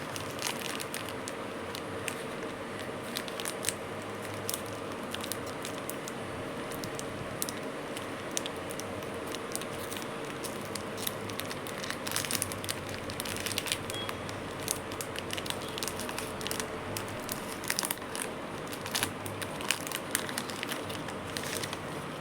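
Crinkling and crackling of a Cadbury Dairy Milk Silk chocolate bar's wrapper being handled and torn open, with irregular sharp crackles that grow busier in the second half, over a steady background hum.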